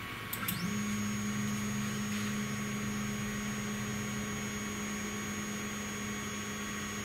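Stepper motor of a 3018 desktop CNC router driving the X axis along its lead screw on a 100 mm jog. A couple of clicks, then about half a second in the motor starts with a quick rising sweep as it ramps up and settles into a steady whine.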